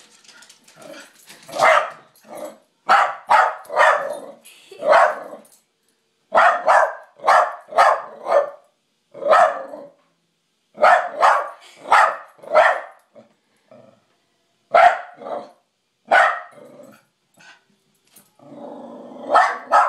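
Dog barking loudly at its own reflection in a mirror, in volleys of two to four sharp barks with short pauses between: alarm barking at what it takes for an intruding dog.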